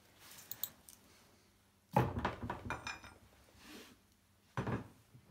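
Metal tools clinking against a metal fitting while working the large 32 mm nut on the fuel tank fitting. Light clicks at first, then a sharp knock about two seconds in followed by a second of clattering, and another knock near the end.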